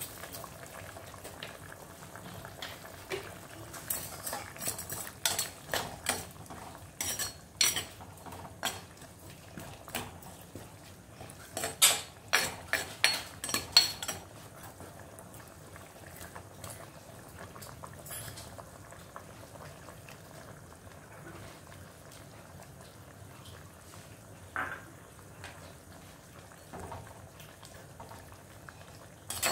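Metal spoon and ladle clinking and scraping against a black cooking pot as a curry is stirred, with a quick run of sharp clinks in the first half and a few more near the end. The curry simmers underneath.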